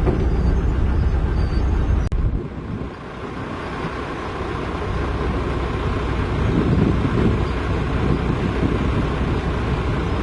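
Heavy diesel machinery running with a deep, steady rumble. About two seconds in the sound breaks off sharply, then the engine rumble swells back up over the next few seconds.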